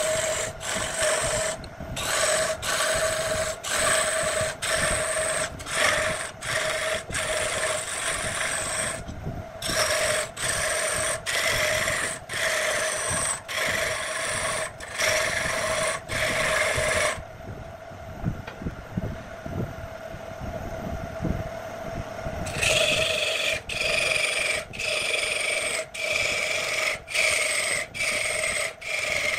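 Hand-held steel turning tool cutting into a large wooden blank spinning on a wood lathe: rough ripping strokes about one a second, each broken by a short gap, over a steady hum from the lathe. About two-thirds of the way in, the cutting stops for about five seconds and only the hum of the spinning lathe is left, then the strokes resume.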